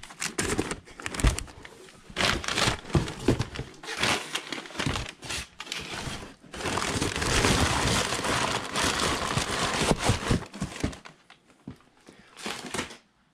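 Packing material crumpling and rustling as items are handled in cardboard boxes, with scattered knocks and scrapes. The crumpling becomes a steady stretch from about six to ten seconds in, then thins out near the end.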